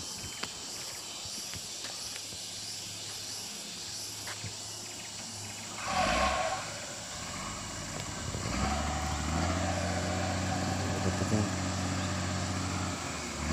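A few faint clicks, then a brief loud burst about six seconds in. From about eight and a half seconds, a heavy vehicle's engine runs steadily with a low, constant hum.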